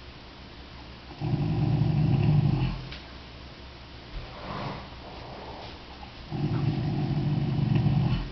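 Percheron draft mare snoring in her sleep: two long, low snores about five seconds apart, with a fainter sound between them.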